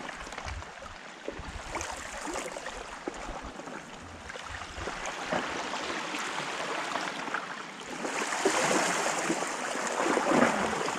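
Sea water washing and splashing against shore rocks, growing louder about eight seconds in. Wind rumbles on the microphone in gusts during the first half.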